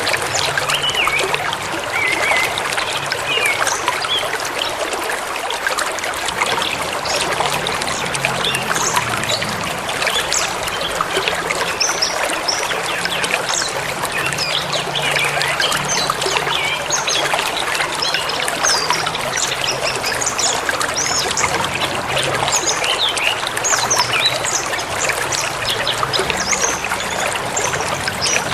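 A stream running and babbling over stones, steady throughout, with several small birds chirping and calling above it.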